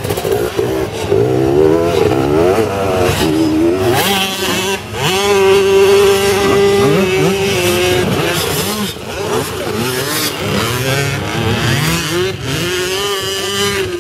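Several motocross bikes revving and accelerating, their engine notes overlapping and rising in pitch over and over, dropping back between rises as they go up through the gears.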